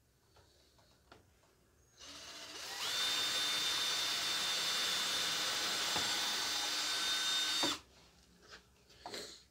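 Power drill spinning up with a rising whine, running steadily for about five seconds and then stopping abruptly, drilling holes through wood. A few light handling knocks come before and after it.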